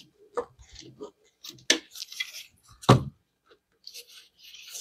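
Clicks and knocks of hands and channel-lock pliers working a stuck hose loose on an engine's intake, with some rustling. A sharp knock comes a little under two seconds in, and the loudest thump about three seconds in.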